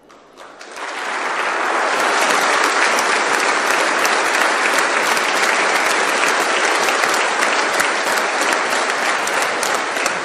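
Large audience applauding, swelling up within the first two seconds and then holding steady.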